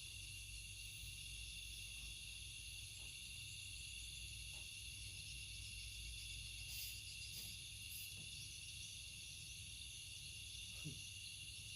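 Steady chorus of insects such as crickets or cicadas: several high, unbroken buzzing tones held evenly throughout, over a faint low rumble, with a few soft ticks about two-thirds of the way in.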